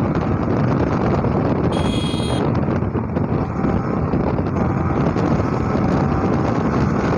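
Steady wind rush buffeting the microphone of a 155 cc Yamaha sport bike ridden at about 100 km/h, with its engine running underneath. A short high-pitched beep sounds about two seconds in.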